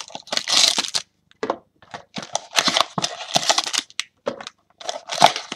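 Foil-wrapped trading card packs crinkling and rustling as they are handled and stacked, in several short bursts with brief pauses between them.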